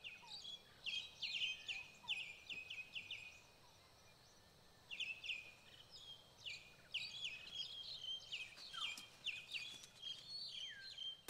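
Faint bird chirping: quick runs of short, high, falling chirps, with a pause of about two seconds in the middle.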